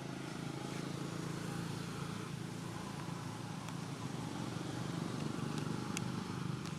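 A steady, low engine-like hum.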